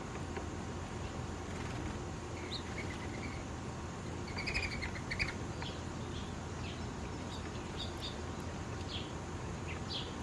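Small birds chirping in short, high calls, starting a few seconds in and clustering near the middle, over a steady low background rumble.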